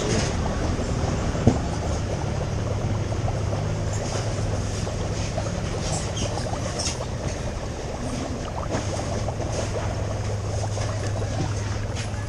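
Seafood market background: a steady rush of noise over a low hum, with scattered small clicks and knocks and one sharp click about a second and a half in.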